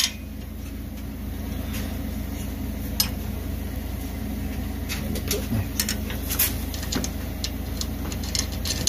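Scattered light metallic clicks and taps as carriage bolts are fitted by hand through the square holes of a steel mower discharge shield, over a steady low hum.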